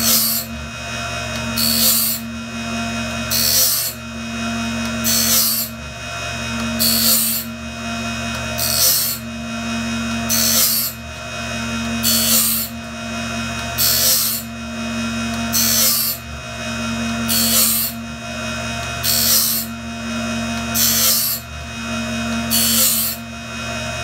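Cook's Cat Claw band-saw blade sharpener grinding a blade: a short, hissing grind as the wheel dresses each tooth, repeating evenly about every 1.7 seconds, over the machine's steady hum as the blade is indexed forward one tooth at a time.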